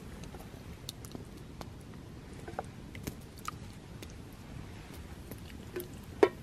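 Wood crackling on a campfire, with sharp pops every second or so and one much louder knock near the end.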